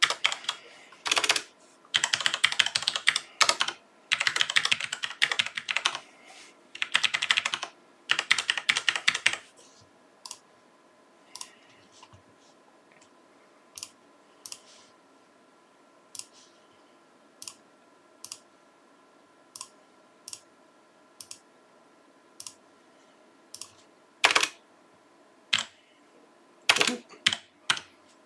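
Computer keyboard typing: quick runs of keystrokes for about the first nine seconds, then single clicks about once a second, then a few more rapid runs of typing near the end.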